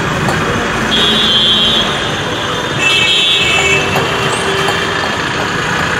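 Heavy city bus traffic passing close by with engines running, and a vehicle horn sounding twice: a short blast about a second in and another just before the middle.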